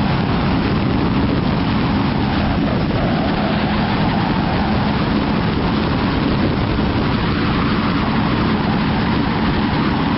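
Kawasaki Vulcan S motorcycle running steadily on the road, a low steady engine hum under a loud, even rush of wind and road noise.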